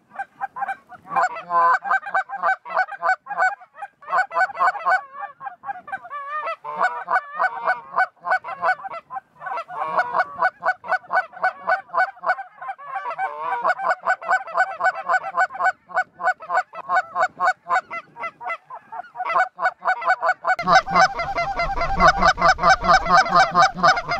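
A large flock of snow geese calling, many short honks and yelps overlapping in a continuous clamour. Wind rumbles on the microphone during the last few seconds.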